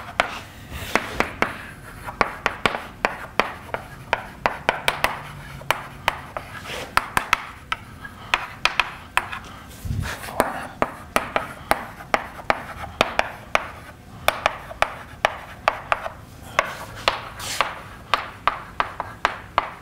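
Chalk writing on a blackboard: a quick, uneven run of sharp taps and short scratchy strokes as words are written, with a dull low thud about halfway through.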